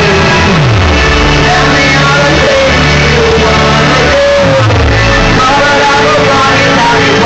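A singer performing into a handheld microphone over a loud rock backing track played through the club's PA. Low bass notes slide downward a couple of times.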